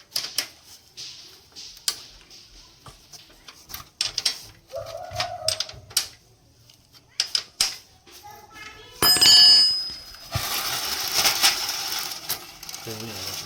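Metal tools and bicycle parts clicking and knocking during reassembly work. About nine seconds in, a metal part strikes with a loud, ringing clang, followed by a few seconds of steady scraping noise.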